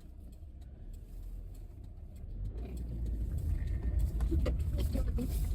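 A car heard from inside the cabin as it turns around and pulls away. A low engine and road rumble is quiet at first and grows louder from about three seconds in.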